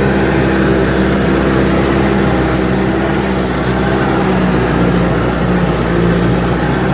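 Log skidder's diesel engine running steadily while pulling a drag of logs.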